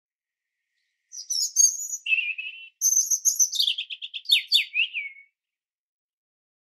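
A songbird singing one short phrase that starts about a second in: high chirps, a lower trill, then a quick run of notes falling in pitch.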